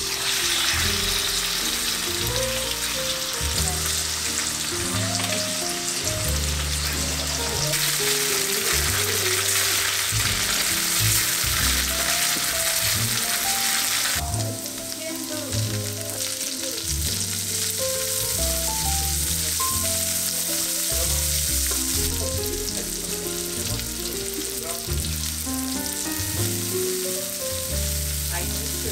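Food sizzling and frying in hot oil in a pan, with a loud, steady hiss that changes abruptly twice. Soft background music runs underneath.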